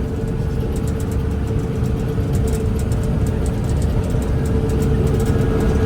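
Combine harvester running steadily in the field: a low rumble with a steady whine over it.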